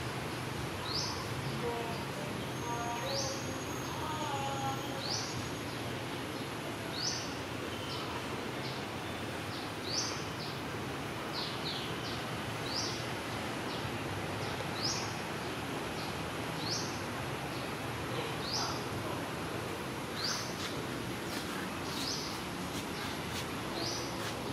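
A bird repeating a short, high chirp about once a second over steady outdoor background noise, with a few fainter, lower chirps in the first few seconds.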